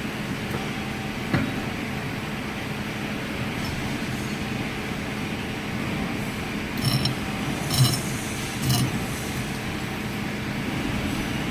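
Metal lathe running with a steady mechanical hum, with a sharp click early on and three short metallic knocks about a second apart past the middle.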